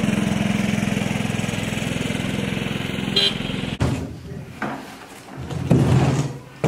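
Small utility vehicle engine (a John Deere Gator) running steadily, with a brief high chirp about three seconds in. Just before four seconds the engine cuts off abruptly, followed by a few sharp knocks and a short voice-like sound in a quieter room.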